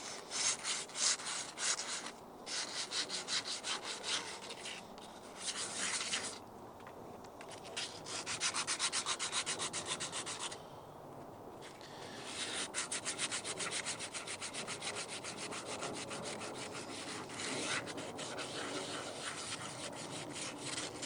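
120-grit sandpaper rubbed by hand over the rusted surface of a cast iron pan, in quick back-and-forth strokes that come in several bouts with short pauses. The paper is clogging up and cutting poorly against the rust.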